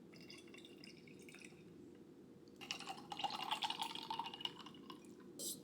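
Milk being poured into a storage container, beginning about two and a half seconds in and running for about two and a half seconds.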